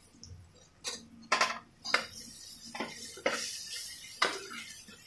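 Steel spoon knocking and scraping against the inside of an aluminium pressure cooker while stirring chopped tomatoes into frying spices, a handful of sharp clinks at irregular intervals.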